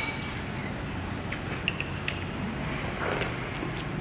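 Steady background rumble of a busy eating place. A clink of tableware rings briefly at the start, and a few light clicks follow about a second and a half in.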